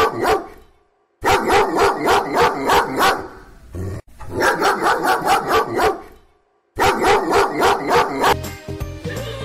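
A dog barking in quick runs of about three or four barks a second, each run lasting about two seconds, with short silent gaps between them, like a looped barking effect in an intro jingle; steady music takes over near the end.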